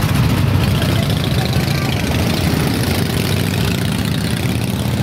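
Several Harley-Davidson V-twin motorcycles riding past at low speed, their engines running at low revs with a steady deep sound.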